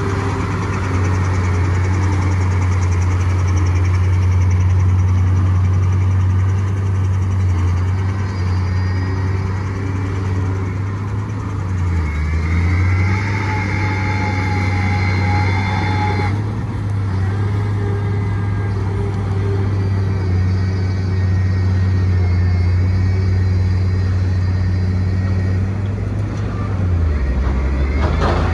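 Diesel engine of heavy construction machinery running steadily, its pitch dipping briefly twice. A high whine rides over it for a few seconds in the middle and cuts off suddenly.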